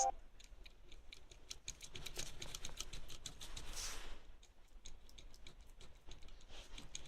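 Nissan X-Trail T31 steering rack shaft being rocked by hand in its worn bushing, giving a run of faint, irregular clicks and light knocks: the play in the worn bushing that causes knocking in the steering wheel over bumps.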